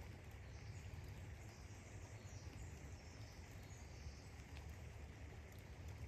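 Faint outdoor background: a steady low rumble, with faint high chirping for the first few seconds.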